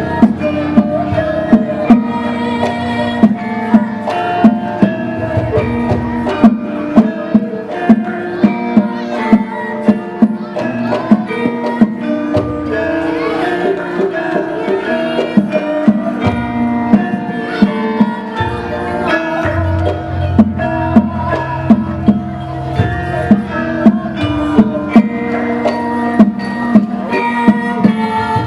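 Javanese gamelan ensemble playing karawitan: struck bronze metallophones and gongs ringing in a steady, regular beat, with drum strokes.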